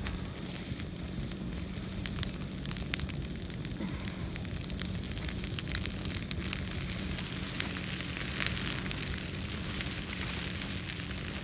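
Brush-pile fire of leafy green branches crackling, with many sharp pops and snaps, as the burning branches are shoved deeper into the flames.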